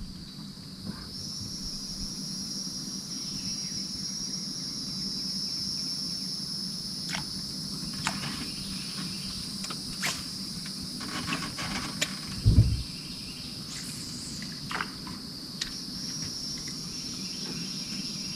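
Steady high-pitched insect chorus that sets in about a second in, with scattered short ticks and one loud low thump about twelve seconds in.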